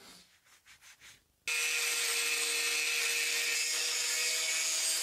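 A power tool starts about a second and a half in and runs steadily, cutting away the jagged edges of a broken part. Before it starts there are only a few faint clicks.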